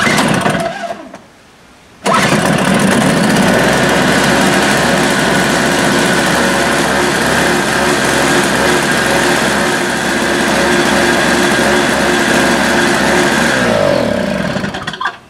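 Tecumseh 3 hp two-stroke snowblower engine being pull-started on choke: a first pull that does not catch, then on the second pull about two seconds in it starts and runs steadily. Near the end it is switched off and runs down. The engine starting and running shows the freshly repaired carburetor, with its new needle and seat, is working again.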